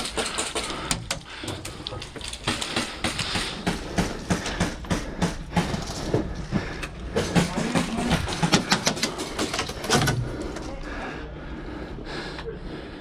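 Airsoft gunfire: a string of sharp, irregular snapping shots during a firefight, coming thickest about seven to nine seconds in and stopping about ten seconds in.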